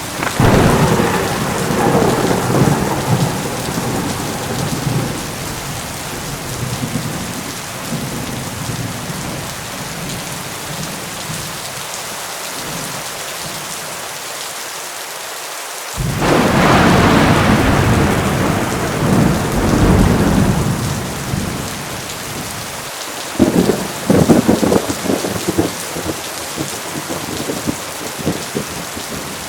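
Heavy rain pouring steadily through a thunderstorm. Thunder rolls in right at the start and fades over several seconds, a second rumble breaks in suddenly about halfway through, and a series of sharp cracking claps follows near the end.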